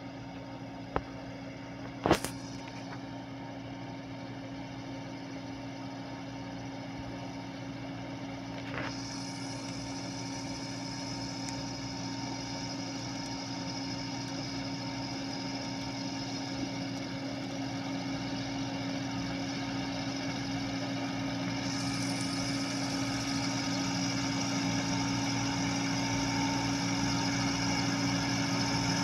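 Landini tractor's diesel engine running steadily under load as it tills a field, growing gradually louder as it comes closer. A few sharp clicks in the first couple of seconds.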